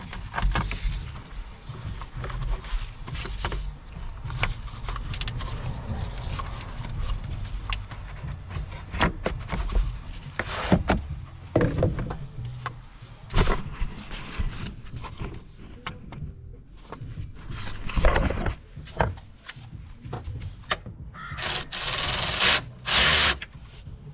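Scattered knocks, clicks and scrapes of hands and tools working on a car battery and its clamp. Near the end a cordless ratchet runs for about two seconds.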